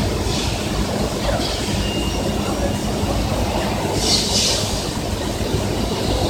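Industrial glass-handling machinery running with a steady rumble. There is a short hiss just after the start and a louder hiss about four seconds in.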